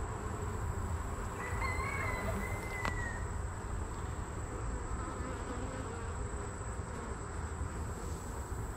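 Honey bees buzzing around an open hive frame, a steady hum, with a brief high whistle about a second and a half in.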